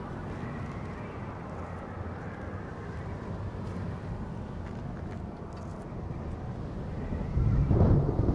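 Steady low rumbling ambience in a film soundtrack. About seven seconds in, a loud, deep rumble of thunder breaks in.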